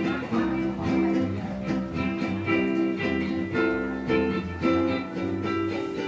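Live music led by a strummed acoustic guitar, held chords changing every half second or so with steady picking strokes.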